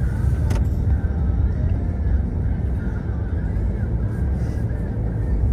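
Steady low rumble of a car's engine and road noise heard from inside the cabin, with a single sharp click about half a second in.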